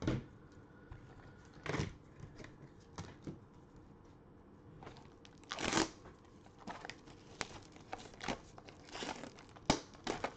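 Clear plastic shrink wrap being torn and pulled off a cardboard trading-card box, crinkling in irregular bursts with a few sharp crackles; the loudest rustle comes about halfway through.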